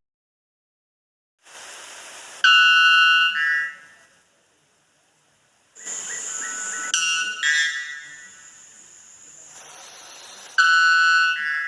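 Bellbird calling: three loud, ringing calls, each a clear tone with overtones that steps up in pitch partway through, over a steady background hiss.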